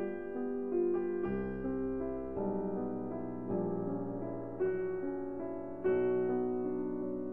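Background piano music: a melody played over sustained chords, with new notes struck every second or so.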